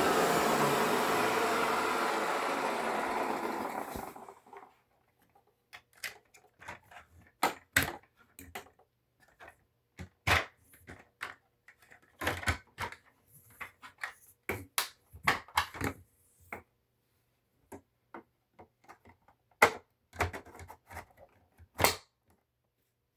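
Hoover Elite upright vacuum cleaner's motor switched off and spinning down, its whine falling in pitch and fading over about four seconds. Then scattered clicks and knocks of handling, with near silence between them.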